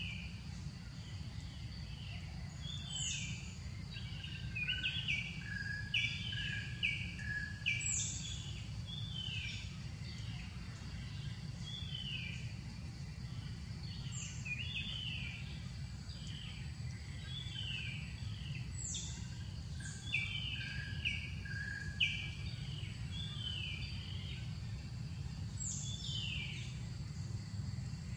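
Small birds calling: a steady series of short falling chirps, about one a second, with a sharper whistle sweeping down from high pitch every few seconds, over a steady low rumble.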